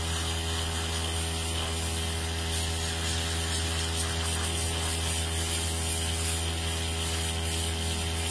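Small airbrush compressor running with a steady hum, under the hiss of air from the airbrush spraying nail colour.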